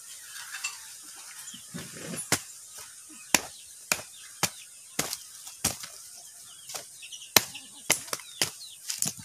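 Machete chopping into a coconut's fibrous husk: a run of sharp chops, about one or two a second, starting about two seconds in, as the husk is hacked off.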